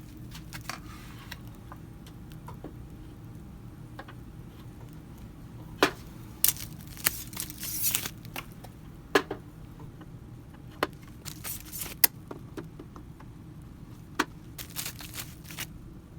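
Scattered clicks, taps and clinks of Z-axis rods being fitted into a delta 3D printer's frame columns and screwed in place, some sharp and loud, over a steady low hum.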